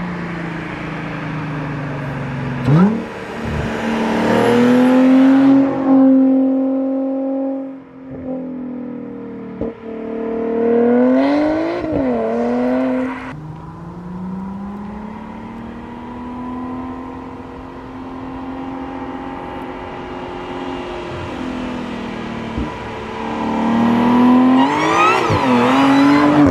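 2014 Audi S5's supercharged 3.0-litre V6, stage 2 tuned and running an X-pipe and muffler-delete exhaust, revving: the revs climb sharply three times, about three seconds in, around the middle and near the end, hold high for a few seconds and then fall back.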